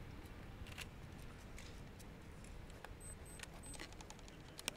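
Faint, scattered small clicks and metallic taps from hands working on a robotic tether climber. A few short, very high beeps come about three seconds in.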